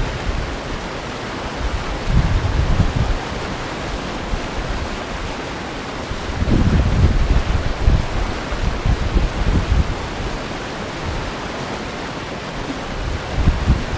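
White-water river rapids rushing steadily, with wind buffeting the microphone in low gusts a couple of seconds in, again in the middle and near the end.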